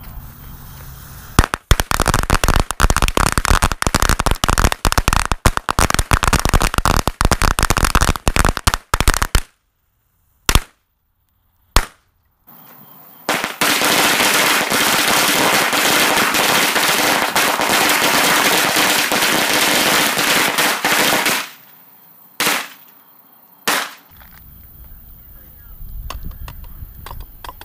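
Thunderbomb firecrackers going off in a rapid, dense crackling volley for about eight seconds, followed by two single bangs. Then comes another long stretch of dense, continuous crackling, and two more single loud bangs near the end.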